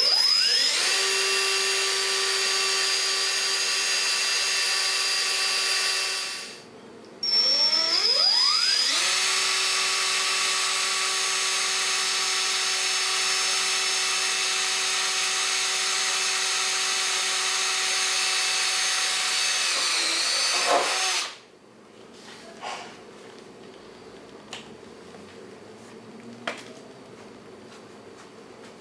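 DeWalt 18-volt cordless drill boring mounting holes in a magnetic tool holder. It runs in two long steady whines, about six and about fourteen seconds long, and the motor spins up in pitch at the start of each. A few faint clicks follow.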